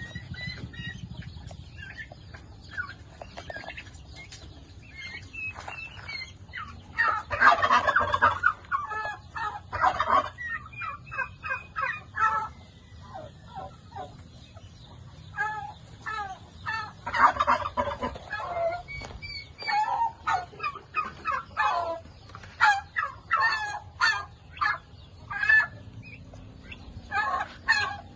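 Domestic turkeys gobbling and calling: many short calls throughout, with two loud, dense bursts of gobbling about a quarter and about two-thirds of the way through.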